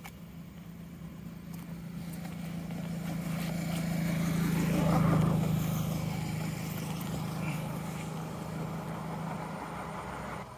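A motor vehicle's engine hum passing by on the road: it grows louder to a peak about halfway through, then fades.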